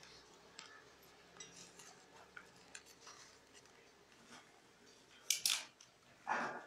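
Rolled paper tubes being handled and woven: faint clicks and rustles of paper tubes against each other and the tabletop, with two louder, sharp scraping rustles about five seconds in and a short dull knock just after.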